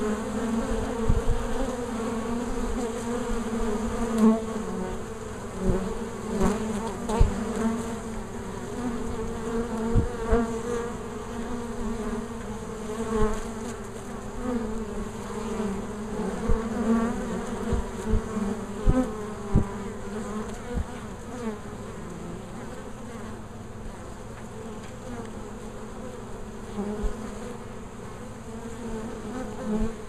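A swarm of honeybees buzzing at the hive entrance as they fly in and out, a steady hum that swells and wavers as bees pass close by, with a few short soft taps. The buzzing thins out somewhat in the last third.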